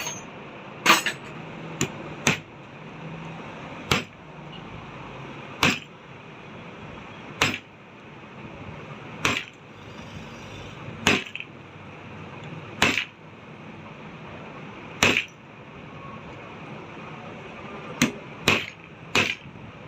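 Sharp hammer taps driving a new ball bearing onto the motor shaft of an electric hand blender, about one tap every one and a half to two seconds, with three quick taps near the end.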